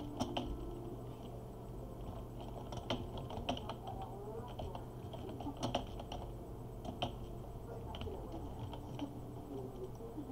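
Computer keyboard keys clicking in irregular runs of keystrokes as a line of text is typed.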